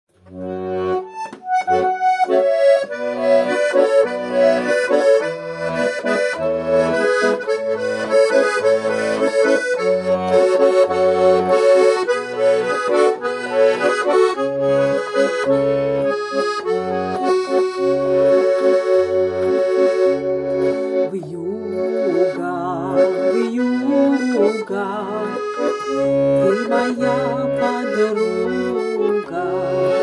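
Button accordion (garmon) playing a folk-style instrumental introduction: a melody in the right hand over a steady, evenly pulsed alternation of bass notes and chords.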